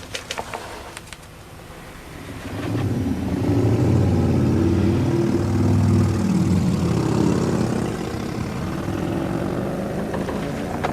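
A few sharp clicks, then a car engine comes in loud about two and a half seconds in and runs with its pitch rising and falling as it revs.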